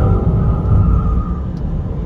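A motor vehicle's engine note fading away over a steady low rumble.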